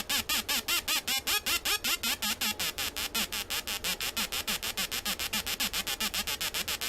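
Atari Punk Console, a homemade square-wave synth built on 555 timer chips, giving a harsh, buzzy electronic tone chopped into rapid even pulses, about seven a second, each with a swooping pitch.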